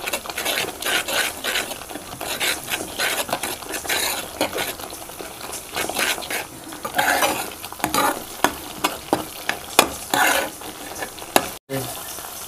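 Flat spatula scraping and stirring a thick cream masala gravy in a kadhai, in quick irregular strokes over a steady sizzle, as the cream is fried on high flame with continuous stirring so it doesn't stick.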